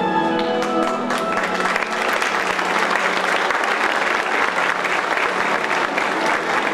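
Audience applauding, building up about a second in, with background music still playing under the clapping.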